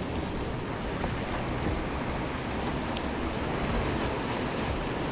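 Sea surf washing over shoreline rocks, a steady rushing noise, with wind buffeting the microphone.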